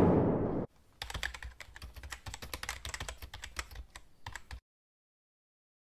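The tail of a loud, noisy sound cuts off within the first second. Then rapid computer-keyboard typing, many quick clicks, runs for about three and a half seconds and stops.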